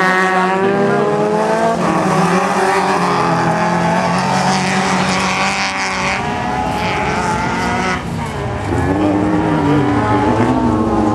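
VW racing cars' engines, limited to 1400 cc, running hard as several cars race on a dirt autocross track. The engine notes rise and fall in pitch as drivers come on and off the throttle. The sound eases briefly about eight seconds in, then the revs climb again.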